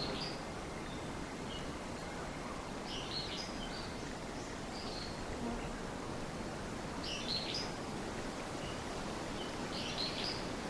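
Small songbird singing short high chirpy phrases about every three seconds, with single soft chirps in between, over a steady outdoor background hiss.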